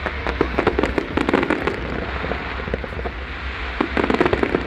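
Aerial fireworks bursting: many quick pops and bangs in rapid runs, one through the first couple of seconds and another, denser, about four seconds in.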